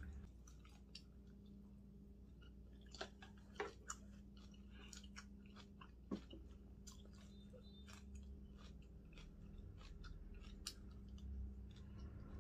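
Quiet close-up chewing of a mouthful of seasoned raw shepherd's purse greens, with scattered soft mouth clicks, a few sharper ones in the first half, over a low steady hum.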